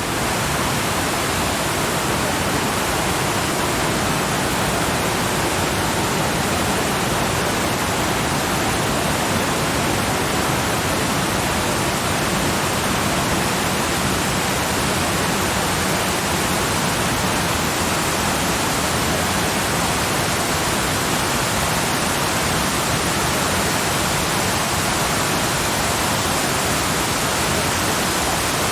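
Waterfall rushing steadily: an even, unbroken hiss with no change.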